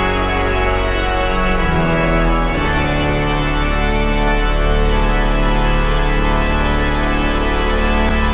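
Instrumental music of sustained organ-like chords without singing, changing chord about two and a half seconds in.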